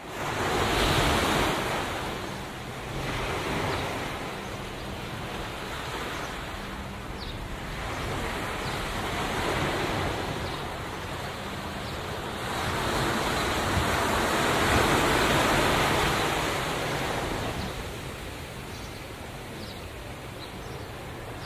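Ocean surf: waves breaking and washing up a sandy beach, the rush swelling and easing off every few seconds, loudest about two-thirds of the way through.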